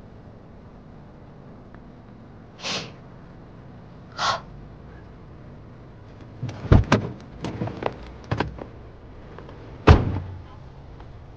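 A car door opened with a quick run of clicks and knocks, then slammed shut with one heavy thud near the end. Two short soft rushes of noise come earlier.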